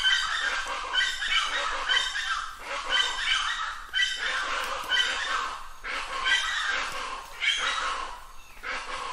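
Plain chachalaca calling: harsh, raucous call notes repeated over and over, a little quieter near the end.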